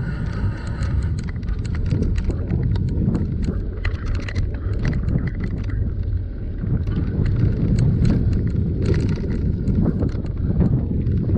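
Wind buffeting the microphone of a camera riding on a moving bicycle, a steady low rumble, with a rapid scatter of small clicks and rattles from the bicycle rolling over the paved path.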